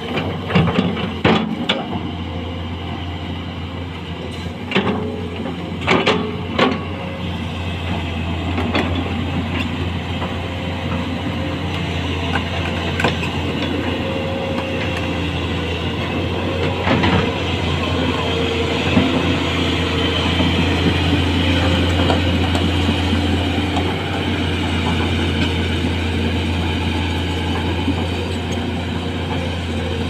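Diesel engine of a SANY SY220C-9 crawler excavator running steadily with a deep hum, with several sharp clanks in the first seven seconds and a couple more later.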